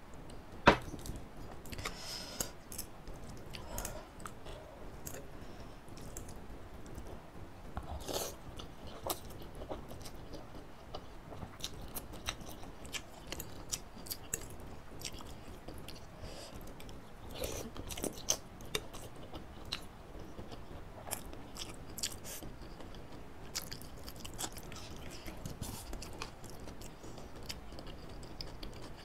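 Close-miked chewing and biting of instant noodles and vegetables, with some crunching and scattered small clicks and crackles. A sharp knock sounds just under a second in.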